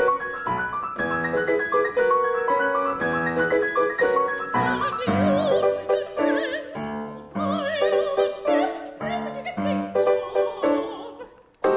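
Operatic singing with piano accompaniment: piano chords at first, then from about four and a half seconds in several voices singing with wide vibrato over the piano. The music falls away near the end and is cut by a sudden sharp sound.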